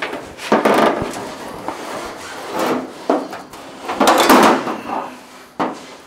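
Hand tools being handled on the sheet-steel roof of a car under construction: a few short scraping and knocking noises, the loudest about four seconds in, then a sharp knock near the end.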